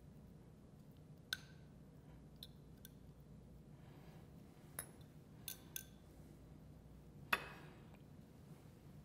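Metal fork clinking against a small glass bowl and ceramic plates while scooping out salsa: a handful of light, scattered taps, the loudest about seven seconds in with a short ring, over quiet room tone.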